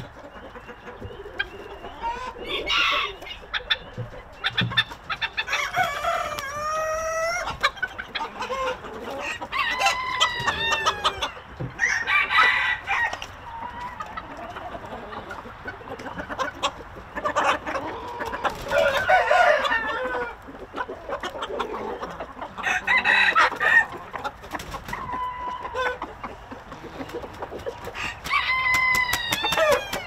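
Chickens: roosters crowing again and again, a crow every few seconds, some overlapping, with hens clucking in between.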